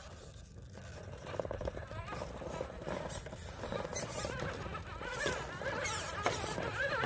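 Redcat RC rock crawler's electric motor and gearbox whining as it climbs over rock, the pitch rising and falling with the throttle, with scattered small clicks and scrapes from the tyres and chassis on the stone. The whine grows louder in the second half.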